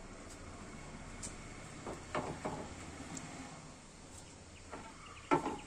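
Clay roof tiles knocking against one another as stacks of them are lifted and set down: a few light clacks about two seconds in, then louder clatters near the end.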